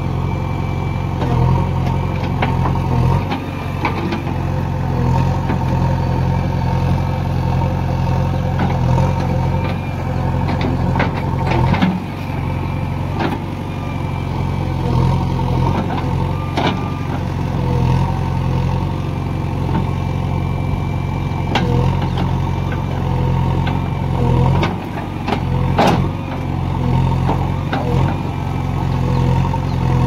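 JCB 3DX backhoe loader's diesel engine running steadily under hydraulic load as the backhoe digs soil, with a few sharp knocks from the bucket and arm.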